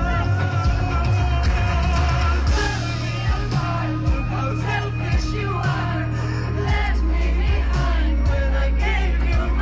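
Live band music with a male singer's voice carrying the melody over heavy, booming bass, picked up on a phone in the crowd in front of a festival stage.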